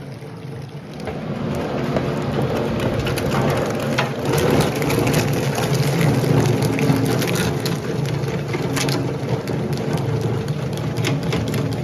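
CopperMine CT-910 pre-shredder chopping automotive wire harness with the connectors still on: a steady machine hum under a dense, continuous crackle of snaps and cracks as wire and plastic connectors are torn apart. It gets louder about a second in.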